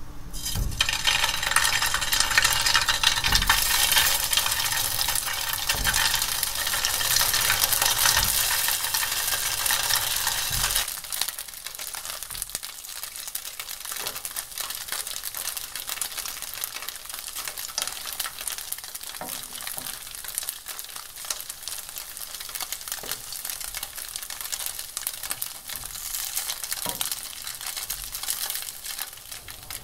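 Pork-and-tofu patties (yukwonjeon) pan-frying in oil: a loud sizzle for the first ten seconds or so, then a quieter sizzle with scattered light clicks.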